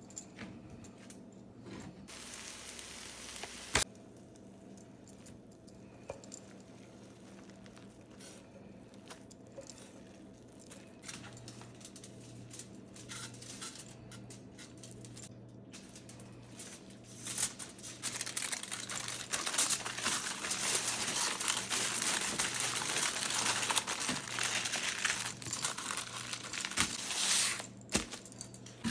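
Kitchen food-preparation sounds: a few soft knocks and clicks over a faint low hum, then about seventeen seconds in a steady hiss with fine crackle sets in and holds for about ten seconds.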